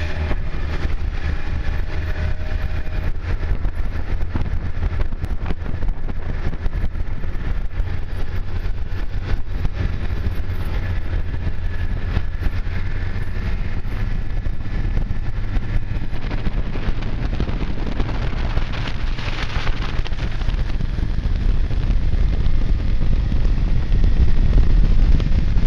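Snowmobile engine running at speed, almost buried under heavy wind buffeting on the microphone. The low rumble grows louder near the end.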